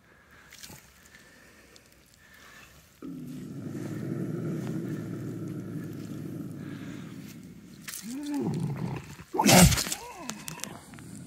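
Bobcat held in a rubber-jawed foothold trap, growling low and steadily from about three seconds in, then a rising-and-falling yowl and a sudden loud burst of noise as it lunges at the camera. It is the sound of a trapped, defensive cat.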